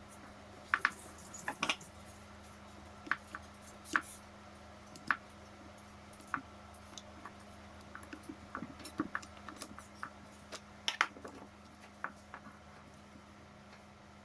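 Irregular light clicks and taps from handling the drill's parts and tools, over a faint steady low hum.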